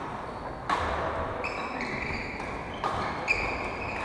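Badminton rackets striking a shuttlecock, about a second in and twice near the end, with sports shoes squeaking on the wooden court floor in between, in a large echoing hall.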